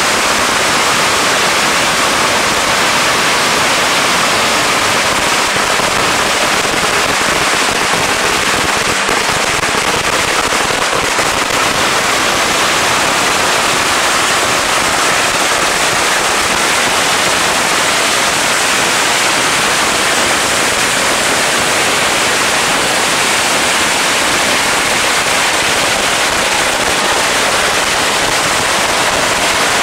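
Firecrackers going off in a dense, unbroken crackle so rapid that the separate bangs merge into a steady, loud rush of noise.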